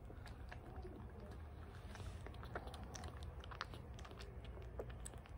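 A 20-day-old kitten suckling milk from a nursing bottle: faint, irregular wet clicks and smacks of its mouth working on the rubber nipple as it gulps the milk down.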